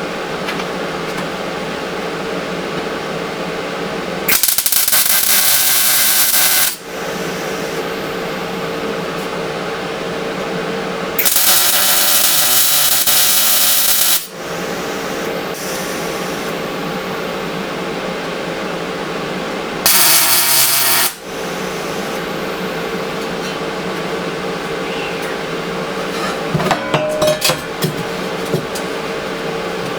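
Steel pieces of a forge fire pot being tack-welded: three bursts of electric-welding crackle lasting about one to three seconds each, starting and stopping sharply over a steady machine hum. A few short metal clinks and knocks follow near the end.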